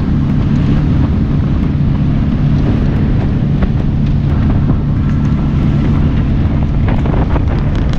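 A boat's outboard motor running steadily at speed, a low even hum, with wind noise on the microphone. A few sharp knocks come near the end.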